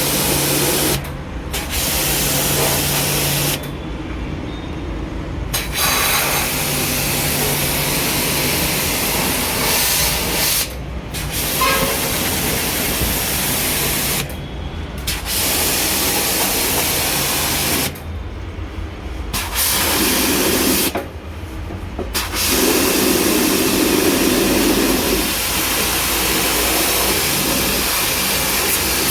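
High-pressure water jet spraying, as when an air conditioner's coils are washed with a pressure washer. The spray cuts off and restarts about six times over a steady motor hum.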